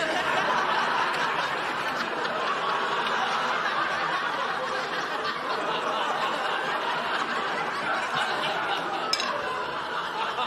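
Studio audience laughing, one long steady laugh that eases off slightly near the end.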